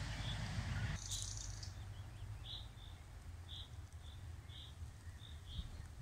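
Nightingale singing: short, clear notes repeated about twice a second, with a brief higher trill about a second in. Low wind rumble on the microphone underneath, strongest in the first second.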